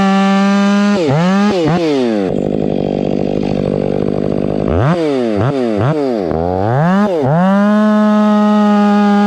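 Stihl 500i fuel-injected two-stroke chainsaw running at high revs, its pitch dipping and climbing a couple of times. About two seconds in the engine drops to a lower, rougher note for a couple of seconds, with a rasping underneath, as the chain bites into a log under load. It then revs up and down several times before settling back to a steady high whine.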